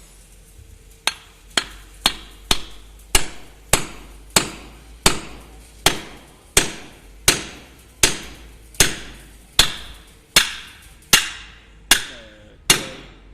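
A hammer strikes the steel universal-joint cross and bearing cup of a truck's propeller shaft, driving them into the yoke. About eighteen steady blows come roughly one and a half per second, starting about a second in, each with a short metallic ring.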